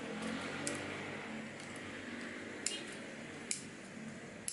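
Sharp plastic clicks, about four spread a second or so apart, as a small black airsoft gun part is handled and fitted in the hands, over a faint steady hiss.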